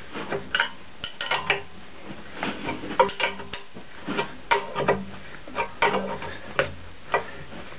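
Wrench turning a nut on a hardened M16 threaded rod to press a repair bush into a cast-iron brake support bore: a run of irregular, sharp metallic clinks and knocks.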